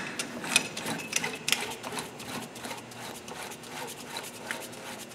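Quick, irregular light metal clicking and rattling as a coil dog spring is worked onto a JDC pulling tool by hand, louder in the first couple of seconds and lighter after.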